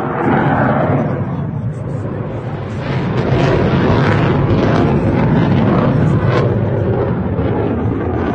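A large explosion starts suddenly, then carries on for several seconds as a loud, sustained rumbling roar with crackling.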